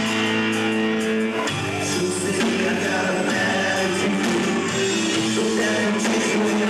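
A rock band playing live, with singing over guitar and drums.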